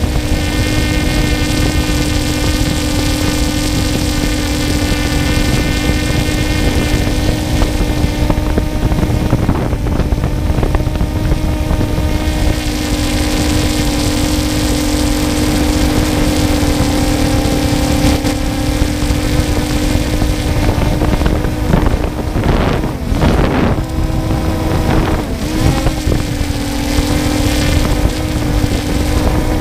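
3DR Solo quadcopter's electric motors and propellers humming steadily as heard close up from the drone itself, with a little wind rush. The pitch dips and recovers twice about three-quarters of the way through as the motors change speed.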